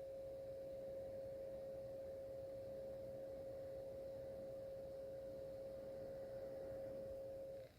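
Optoma UHD65 projector's cooling fan running with a steady single-pitched whine, a vacuum-like noise the owner takes for a defective fan. The tone cuts off suddenly just before the end.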